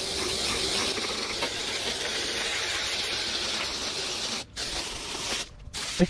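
Garden hose pistol-grip spray nozzle hissing steadily as its water jet rinses coil cleaner off a single-row air-conditioner condenser coil. The spray cuts out briefly twice near the end.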